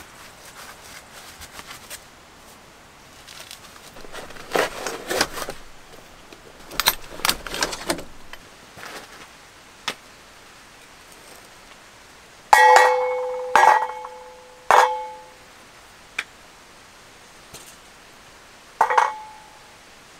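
Rustling of gloves and gear, then a hatchet splitting kindling: three sharp strikes about a second apart, each ringing with a metallic tone that dies away, and one more ringing strike near the end.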